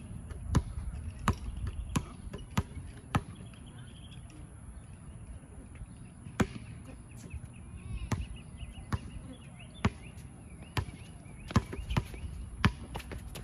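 Basketball bouncing on an outdoor hard court as it is dribbled. A quick, regular run of sharp bounces comes first, then a pause of about three seconds, then more bounces at an uneven pace.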